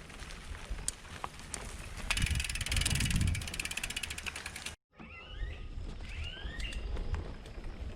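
Mountain bike rear hub ratchet buzzing in a fast run of clicks as the rider coasts, loudest about two seconds in for a second and a half, over the rumble of the tyres on the trail.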